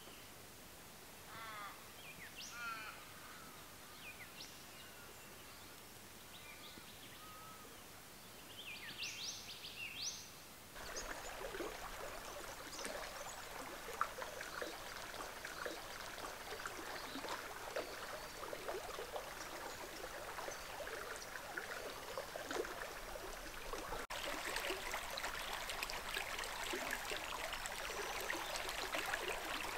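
Birds calling, a handful of separate calls over the first ten seconds or so. Then, from about eleven seconds in, a shallow river flowing over rocks and fallen logs: a steady sound of running, rippling water.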